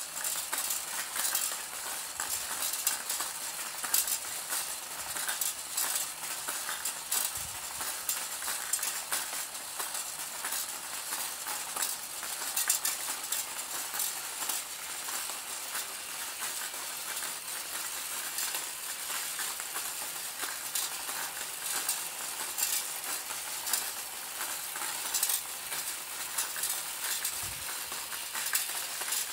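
Meccano Archimedean ball roller running: a steady, dense clatter of balls clicking and rolling along its metal spiral tracks, with a faint low hum from its electric drive motor underneath.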